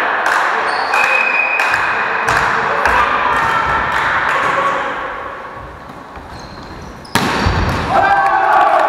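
Volleyball game in a sports hall: the ball is struck and knocked about, with players' shouts. A sudden loud hit comes about seven seconds in and is followed by shouting.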